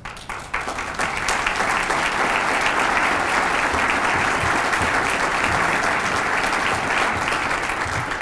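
Seated audience applauding, the clapping building within the first second and holding steady before easing near the end.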